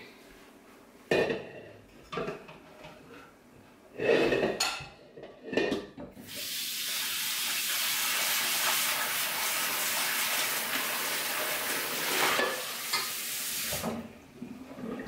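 A wok being rinsed under running water: a few clanks of the pan being handled, then a steady hiss of water for about eight seconds that stops suddenly.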